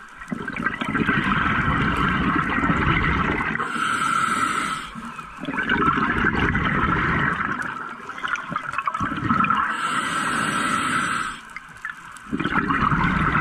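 Scuba diver breathing through a regulator underwater: long exhalations of rushing, bubbling air, with a hissing inhalation through the regulator about four seconds in and again about ten seconds in.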